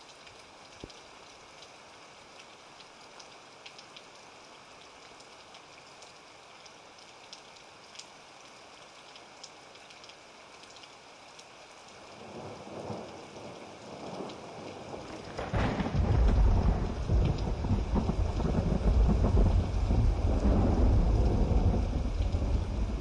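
Thunderstorm: steady rain falling, with scattered drop ticks. About twelve seconds in, thunder starts to rumble, and a few seconds later it swells into a loud, long rolling peal.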